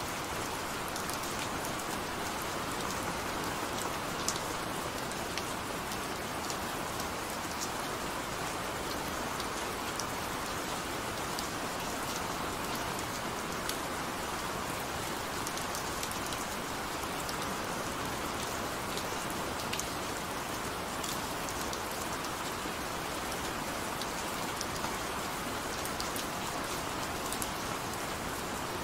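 Gentle, steady rain, with scattered sharp ticks of single drops landing.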